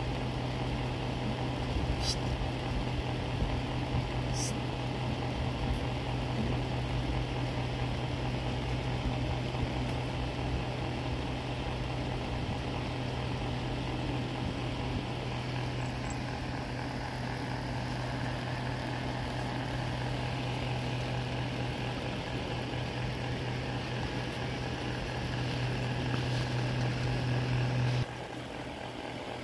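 A steady low mechanical hum with a hiss over it, which cuts off suddenly shortly before the end; a few faint clicks in the first few seconds.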